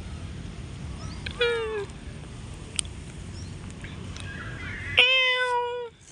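Cat meowing twice: a short meow falling in pitch about a second and a half in, then a louder, longer meow held at a steady pitch about five seconds in.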